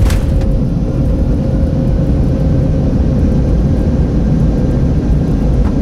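Airbus A330 decelerating on its landing roll-out, heard from the cockpit: a loud, steady low rumble of the engines in reverse thrust and the wheels on the runway.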